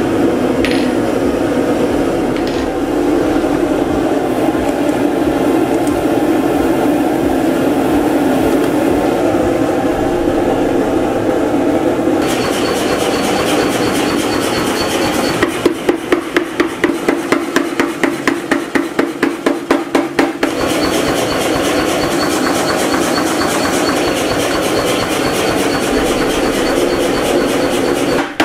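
Steady roar of a coal forge fire under forced air. From about fifteen seconds in, a mechanical power hammer runs with fast, regular strikes, about three a second.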